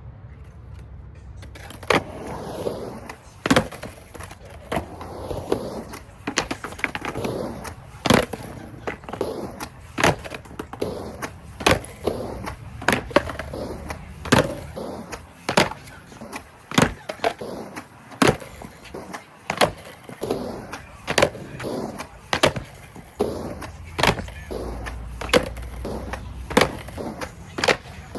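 A skateboard being popped and landed over and over in tre flip attempts. The tail and deck clack sharply against the ground about once a second, and the wheels roll between the clacks.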